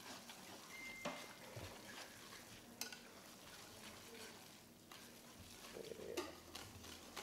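Wire whisk stirring mascarpone into custard in a metal pot: a faint scraping swish with a few sharper clicks of the whisk against the pot.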